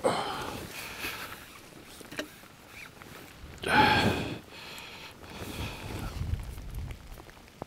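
A landing net holding a small bream being lifted out of the lake: water splashing and draining out through the mesh, loudest about four seconds in.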